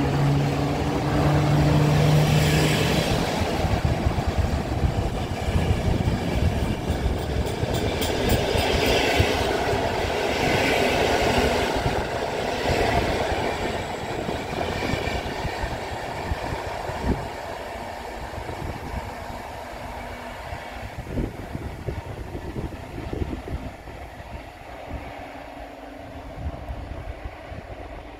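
Intercity passenger train hauled by an EP09 electric locomotive passing, with wheel rumble and repeated knocks from the wheels. The sound slowly fades as the train moves away.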